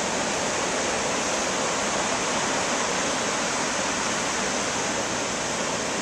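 Steady rushing wash of heavy ocean surf breaking along the beach, an even noise with no single crash standing out.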